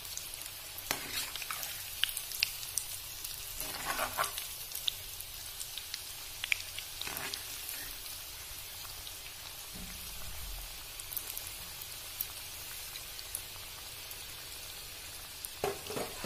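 Breadcrumb-coated noodle balls deep-frying in hot oil with a steady sizzle. A few light knocks come from a utensil turning them in the pan.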